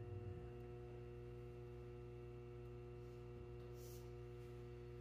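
Quiet room tone with a faint steady hum made of several held tones, and a brief soft rustle about four seconds in.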